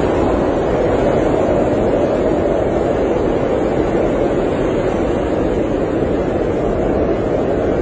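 Blizzard wind: a loud, steady, even rush with no gusts or breaks.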